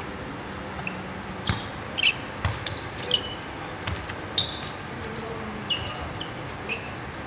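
Basketball bouncing and slapping on a deck court during a pickup game, a string of irregular thuds with the loudest about two seconds in, mixed with short high sneaker squeaks.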